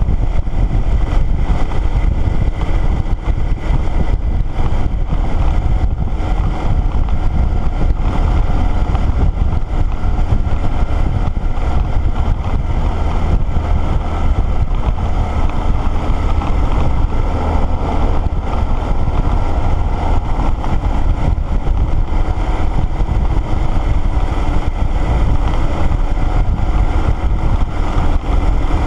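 Motorcycle engine running steadily at cruising speed, with wind rushing past the bike.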